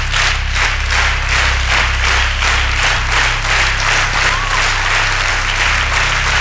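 Studio audience clapping in unison, a steady beat of about three claps a second, over a constant low hum.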